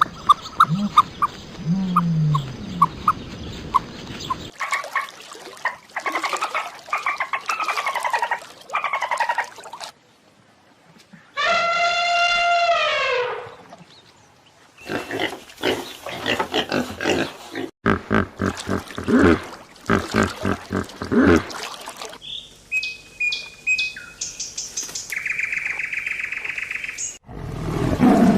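A run of different animal calls cut one after another, each clip a few seconds long. About twelve seconds in comes one long call that rises slightly and then falls in pitch.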